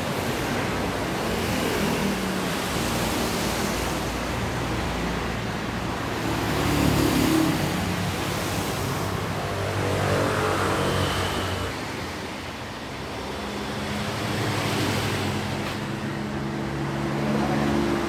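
Isuzu Panther Hi Sporty's 2.5-litre diesel engine idling steadily, with a broad rushing noise behind it.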